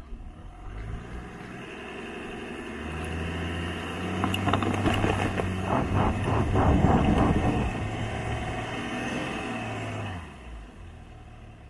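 Land Rover Defender's engine revving under load as the 4x4 tries to pull its caravan out of soft sand, tyres spinning and churning sand. The engine builds from about a second in and is loudest in the middle, with crackling from the churned sand, then drops back near the end. It is bogged down because the tyres were not aired down and the trailer's nose weight pressed the rear axle into the sand.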